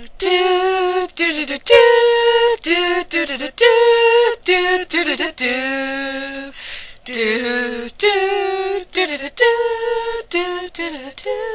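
Unaccompanied female singing: a voice singing short phrases of held notes, with no instruments.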